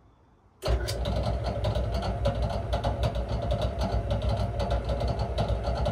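An old Fisher heavy-duty belt-and-pulley drill press switched on about half a second in, then running steadily at its slowest speed, 280 RPM: a steady motor hum with a fast rattle over it.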